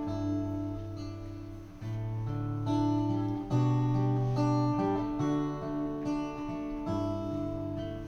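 Acoustic guitar playing a song's intro: chords strummed and left ringing, the chord changing every second or two.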